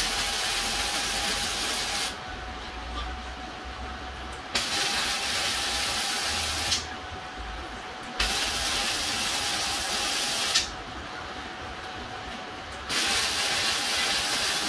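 Welding arc from a Titanium Unlimited 200 welder, running in four bursts of about two seconds each with short pauses between: short welds laid on the steel smoker.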